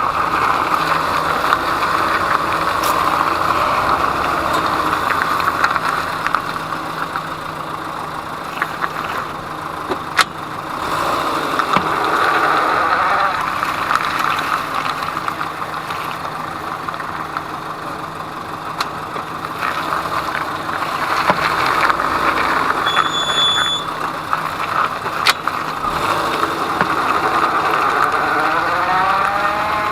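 Peugeot 207 driving, its engine pitch rising and falling over steady road noise. A few single sharp knocks come from the front suspension. The knocks persist after the left hub bearing, strut mounts, ball joints and left shock absorber were replaced, and the owner suspects a CV joint, strut mount or shock absorber.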